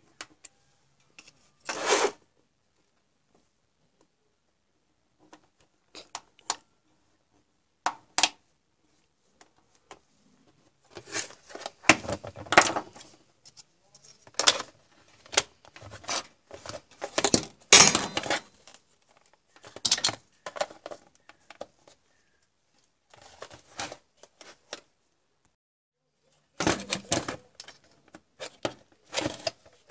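Plastic casing of a digital photo frame being handled: scattered clicks, knocks and scraping of hard plastic on a work surface, in short clusters with quiet gaps between.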